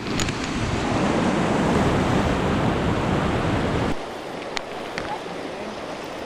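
Whitewater rushing around a float boat as it runs a small river rapid: a loud, even rush of water that cuts off suddenly about four seconds in, leaving a quieter flow with a few light clicks.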